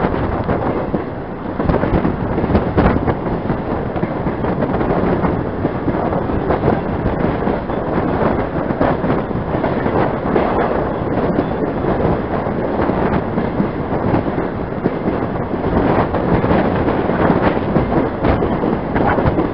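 Steady running noise of a train pulled by Pere Marquette 1225, a 2-8-4 Berkshire steam locomotive, heard from aboard while it is under way, with wind on the microphone.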